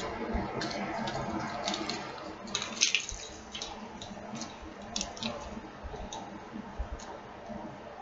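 Small, scattered clicks and rustles of a thin rose-gold-tone costume necklace chain with charms being handled and untangled on its card, with a louder rustle about three seconds in.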